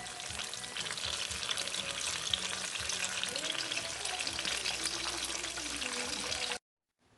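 Batter-coated banana pieces deep-frying in hot oil, a steady dense sizzle and crackle that cuts off suddenly about six and a half seconds in.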